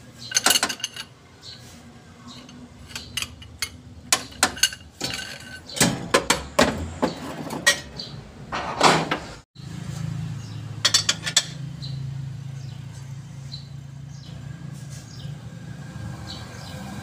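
Metal hand tools clinking and clattering against engine parts as a socket wrench on a long extension bar works the timing belt cover bolts. Partway through, the clatter gives way to a steady low hum with a few more clicks.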